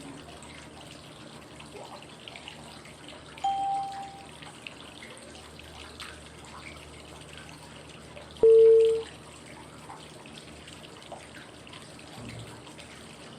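Flowing-water white noise running steadily, with two short cue tones about five seconds apart: a higher one about three and a half seconds in and a lower, louder one about eight and a half seconds in. They are the prompts pacing 5-5-5 breathing: inhale five seconds, hold five, exhale five.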